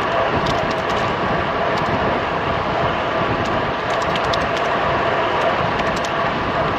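Steady rush of wind over the microphone and tyre noise from a road bike being ridden, with scattered faint ticks.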